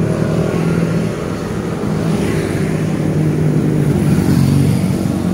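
A motor vehicle's engine running steadily close by.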